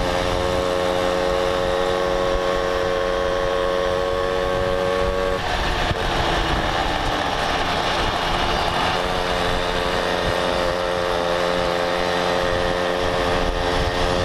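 Mobylette moped's small two-stroke engine running at a steady cruising note, with wind noise on the microphone. About five seconds in the engine note falls and breaks up for a few seconds, then settles back to a steady note.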